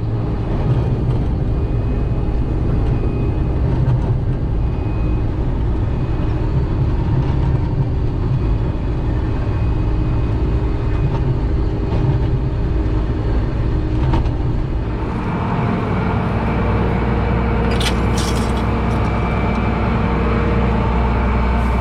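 Combine harvester running steadily while harvesting oats, a continuous engine and machinery drone whose low hum shifts about two-thirds of the way through, with a few light clicks near the end.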